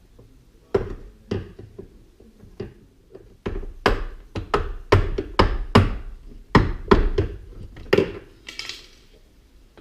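Hammer blows on a steel punch driving the worn hinge pin out of a 1995 GMC Sierra door hinge. A few lighter, spaced strikes come first, then heavier strikes about two a second from about three and a half seconds in, stopping about eight seconds in.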